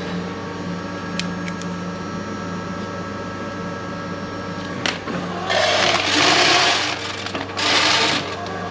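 Steady mechanical hum with several steady tones, with two rushes of hissing noise about five and a half and seven and a half seconds in, the first lasting over a second.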